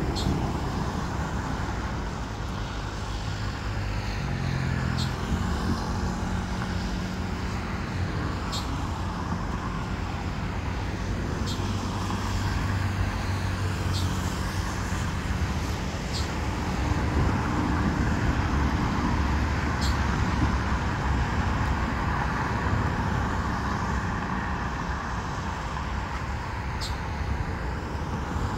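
Road traffic: cars driving past on an avenue, a steady hum of tyres and engines that swells as vehicles go by.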